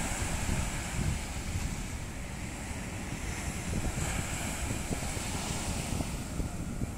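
Small waves breaking and washing on a sandy beach, with wind buffeting the microphone as a steady low rumble.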